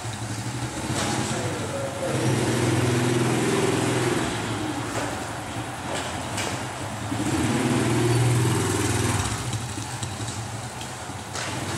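Small step-through motorbike engine running as the bike is ridden in circles with two people aboard. It grows louder twice as the bike passes close, with a few sharp clicks in between.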